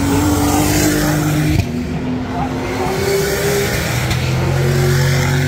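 Race car engine under hard acceleration, its pitch climbing through the revs with a sudden drop at an upshift about one and a half seconds in, then climbing again.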